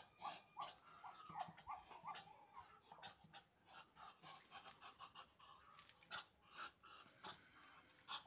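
Muscovy ducks making soft, breathy huffing and hissing calls, faint and rapid, several a second.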